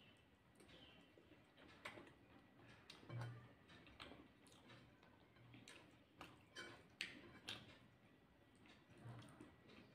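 Faint eating sounds of rice eaten by hand: scattered small clicks and soft mouth smacks as fingers mix rice on a plate and she chews, with a couple of soft low thumps.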